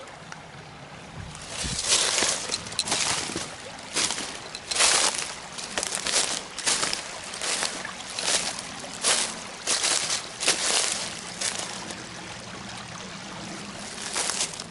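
Footsteps crunching through brush and leaf litter along a creek bank, an uneven step about every second, over the steady trickle of a small stream.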